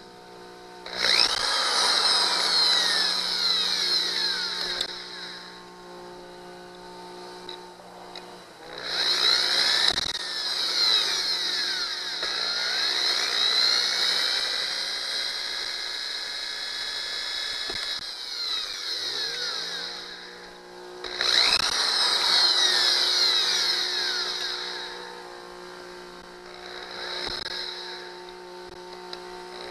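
Electric drill boring into a rust-seized broken screw stud on an outboard motor. It runs in four stretches with pauses between, and its speed rises and falls as the trigger is worked.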